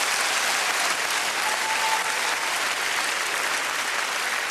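Theatre audience applauding: steady, dense clapping from a large crowd.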